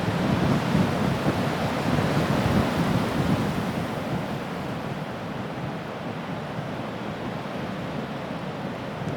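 Blizzard wind blowing and buffeting the microphone: gusty for the first few seconds, then easing to a steadier rush.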